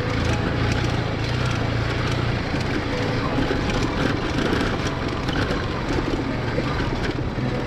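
Motorcycle engine running steadily at low speed while riding over a rough, stony dirt track, with frequent small rattles and knocks from the bumps.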